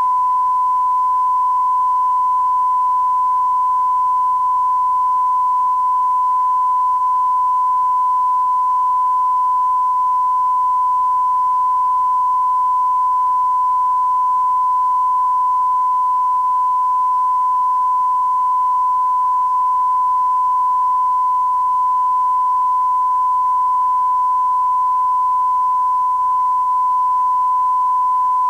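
A steady 1 kHz sine-wave test tone: a reference tone on the tape, held loud and unbroken at one pitch.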